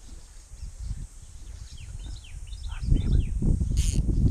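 Songbirds chirping in quick, short falling notes. About three seconds in, a loud, rough low rumble sets in and takes over, with a brief hiss near the end.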